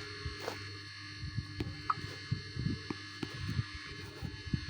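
Steady low electrical hum, with faint irregular low bumps and a few small clicks over it.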